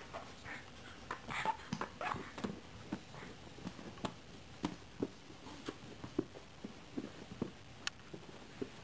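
A small dog's short, faint snuffles and whimpers, coming irregularly about once or twice a second.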